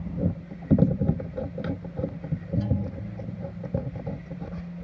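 Light metal clicks and knocks of a brake caliper being handled and its mounting bolts started by hand, over a steady low hum.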